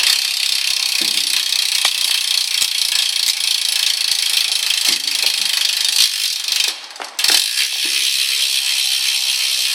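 BMX Shadow Raptor rear hub freewheeling as the back wheel spins, its pawls clicking in a fast, continuous, pretty loud ratchet buzz. It drops out briefly about seven seconds in, then starts again.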